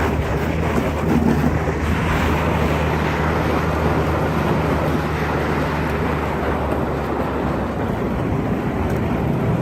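Car engine running steadily while driving slowly, its low hum under a rumble of road and wind noise on the microphone.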